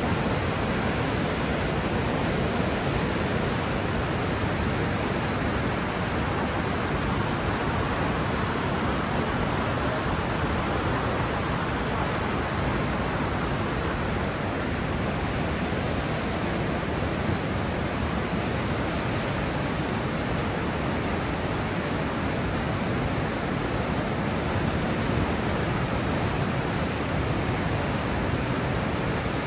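Niagara River class 6 whitewater rapids rushing close by, a loud, steady, even noise with no let-up.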